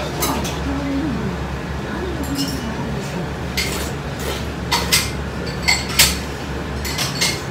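Ramen noodles being slurped in several short pulls, with clinks of chopsticks and a soup spoon against the bowl.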